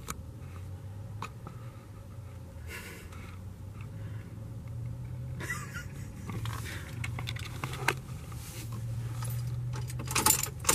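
Low steady hum inside a pickup truck's cab with scattered small clicks and rustles, then keys jangling at the steering column near the end.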